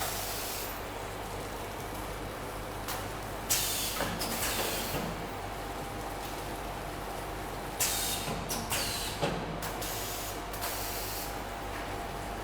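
Paper cup counting and packaging machine running with a steady hum, broken by short hisses a few seconds in and again about two-thirds of the way through, with a few light clicks.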